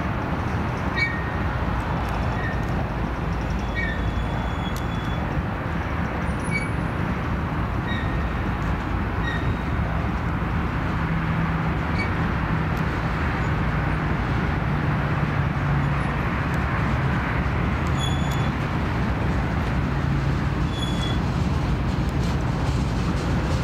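Freight train of covered hopper cars rolling past close by: a steady rumble of steel wheels on rail. Short faint high chirps are scattered through it.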